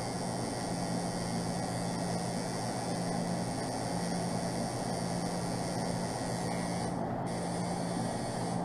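Electric tattoo machine buzzing steadily while its needle lines a stencilled design into skin.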